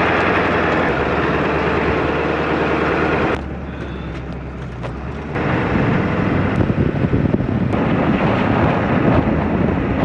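Ford F-350 Powerstroke diesel pickup driving on a snowy, icy road, engine running under tyre and road noise, with wind buffeting the microphone held out of the window. The sound drops quieter about three seconds in, then comes back louder and rougher about five seconds in.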